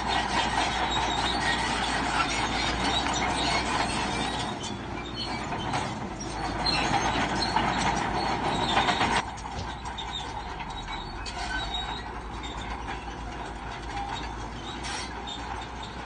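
Crawler bulldozer working, its steel tracks clanking and squealing over the running diesel engine. The noise drops suddenly about nine seconds in and goes on more quietly.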